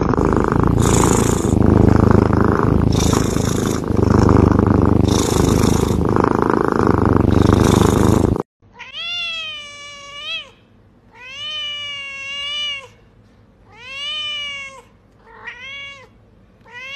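A silver tabby kitten purring loudly and without a break, swelling about every two seconds with its breaths. After a sudden cut, a cream-coloured cat meows five or six times, each call rising and then falling in pitch.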